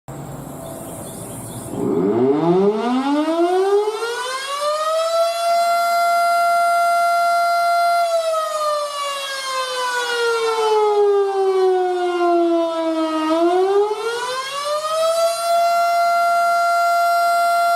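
Tornado warning siren winding up from a standstill, its single tone rising to a steady high pitch, then sliding down partway and climbing back up to hold again.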